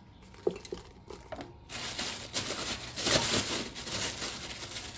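Fresh pigeon pea pods rustling and knocking lightly as handfuls are dropped onto leaves in an aluminium pot, with a plastic bag crinkling. A few scattered clicks come first, and the rustling grows denser from about two seconds in.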